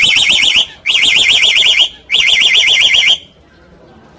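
Black-collared starling mimicking a car alarm: three loud bursts of a fast-warbling siren tone, each about a second long with short gaps, stopping about three seconds in.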